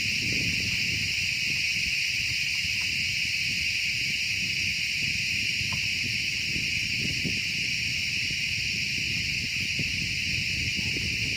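Steady, unbroken high-pitched chorus of insects, a constant shrill buzz in two pitch bands, over a low irregular rumble.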